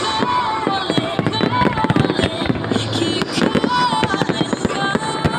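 Fireworks display: a rapid run of bangs and crackles from aerial shells bursting, many per second and without a break.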